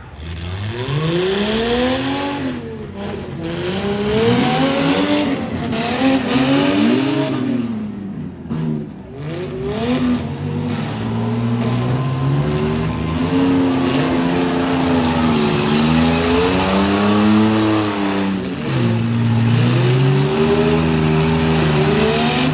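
Demolition derby SUV and truck engines revving hard and dropping back again and again as the vehicles push and ram each other, over a steady hiss of exhaust and spinning tyres.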